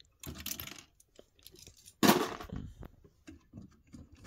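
Plastic LEGO pieces and minifigures clicking and rattling as a hand handles a set on a shelf, with a louder scrape about two seconds in.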